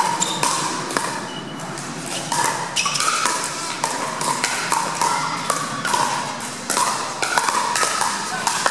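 Pickleball paddles striking the hollow plastic ball during a rally, a string of sharp pops coming roughly every half second.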